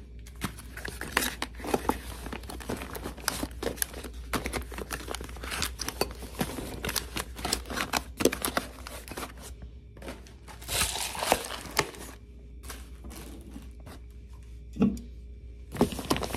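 Food packages being handled and packed into a foil-lined insulated food bag: rustling and crinkling of plastic and foil packaging, with many small knocks of cans, a glass bowl and containers against each other, and a longer stretch of rustling about ten seconds in.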